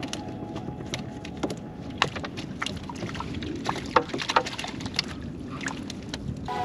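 Fishing net being paid out over the side of a wooden canoe: scattered light clicks and knocks as the net and its floats rub and tap against the hull, over a steady low background rush.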